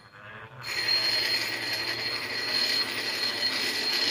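A big steel drill bit being ground on the stone wheel of a slow hand-crank grinder to sharpen its cutting edge: a steady, high grinding hiss with a thin whine in it, starting about half a second in.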